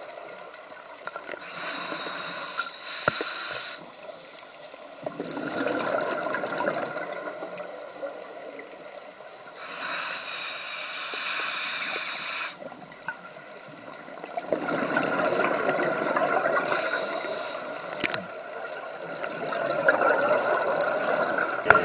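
A scuba diver breathing through a regulator underwater: hissing inhalations alternate with longer bubbling exhalations, in a slow rhythm.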